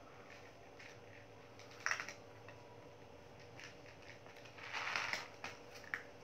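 Husky puppy eating from a plastic tray: scattered small clicks and crunches, with a sharp cluster about two seconds in and a longer crunching burst a little before five seconds.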